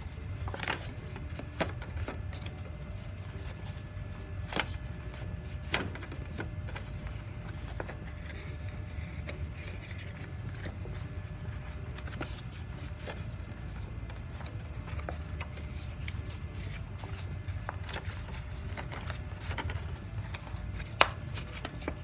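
Black cardstock strip folded back and forth along its creases by hand, working the folds loose: soft paper rubbing with a few sharp crackles, over a steady low hum.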